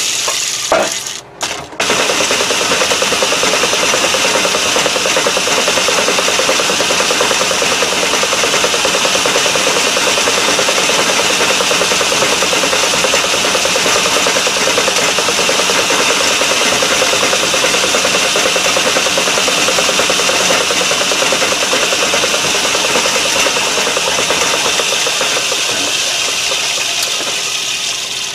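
Metal lathe running steadily with a small tool bit taking a light cut inside a bore, cutting a shallow relief groove about 25 to 30 thousandths deep. The sound dips briefly twice about a second in, then holds steady.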